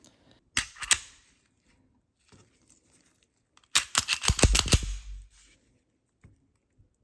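Metal clicks and clacks of an unloaded Sig Sauer P365 pistol being function tested: two sharp clicks about half a second in, then a quick run of clacks with a dull knock about four seconds in.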